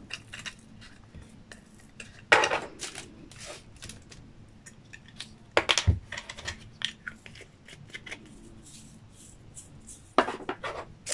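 Small round resin diamond-painting drills rattling as they are poured from a plastic drill tray into a little plastic container, with scattered clicks and taps of plastic being handled on the table. Short rattles come about two seconds in and again near the end, and a knock falls about six seconds in.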